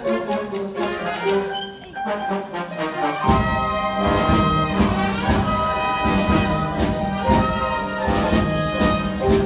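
Instrumental orchestral show-tune music with brass. It starts lighter, and the full orchestra comes in with low bass about three seconds in.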